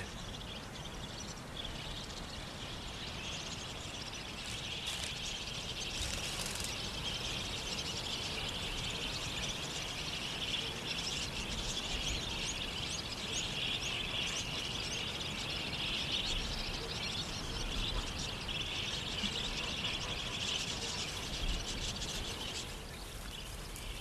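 A flock of budgerigars chattering, many small chirps blending into a continuous high twitter that swells a few seconds in and drops back near the end.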